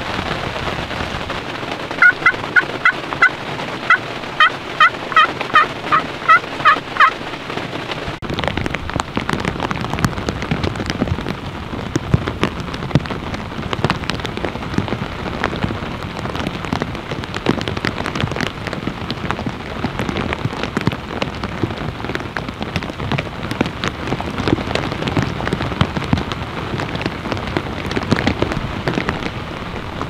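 Pot-style friction turkey call worked with a wooden striker, giving a run of about a dozen evenly spaced hen yelps, about two a second. About eight seconds in it gives way to steady rain with many small drop ticks.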